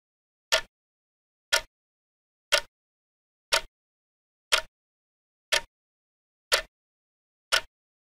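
Clock ticking once a second: eight short, sharp ticks, all alike, with silence between them.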